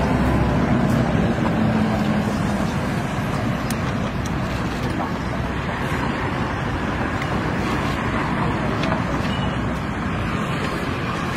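Steady road traffic noise with a vehicle engine running nearby, its low hum strongest in the first few seconds, and a few faint clicks.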